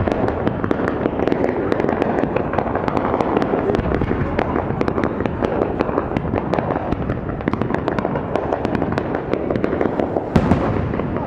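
Fireworks display: aerial shells bursting in a dense, continuous run of crackles and pops, with a louder bang about ten seconds in.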